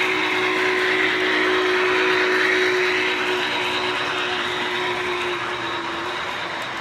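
O-gauge model freight train rolling past on model track: a steady rumble of wheels, loudest about two seconds in and easing off as the boxcars follow the MTH RailKing Union Pacific Big Boy locomotive. A steady hum runs under it and stops about five seconds in.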